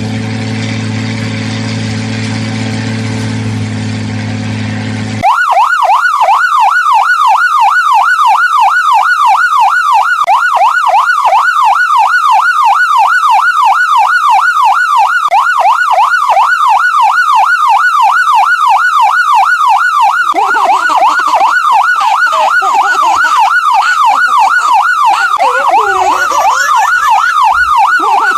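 A steady low droning tone for about five seconds, then an electronic emergency siren cuts in abruptly with a fast yelp, warbling up and down several times a second.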